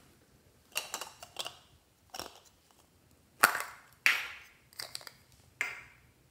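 Hard plastic cosmetic case being handled: a string of sharp clicks and knocks, the loudest about halfway through.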